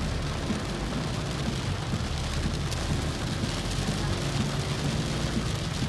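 Heavy rain drumming steadily on a car's roof and windscreen, heard from inside the cabin, over the low rumble of the car driving through the downpour.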